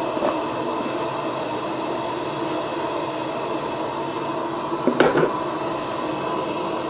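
Steady hiss of a Coleman gas stove and a gas lantern burning. About five seconds in there is a short clatter as a mixing bowl is set down on a wooden cutting board.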